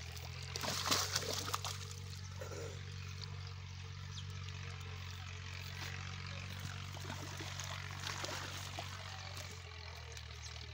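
Shallow water splashing and trickling as a fishing net is hauled in by hand, with a louder splash about a second in. A steady low engine hum runs underneath.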